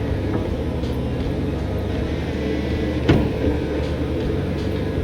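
Cat 226B skid steer's diesel engine running steadily under work, with a single sharp metallic clank about three seconds in.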